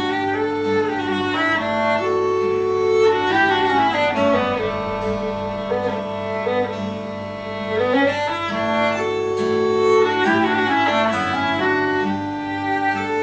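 Folk trio of violin, clarinet and acoustic guitar playing an instrumental tune together, the violin and clarinet carrying the melody over the guitar accompaniment, with quick runs of notes rising and falling in the middle.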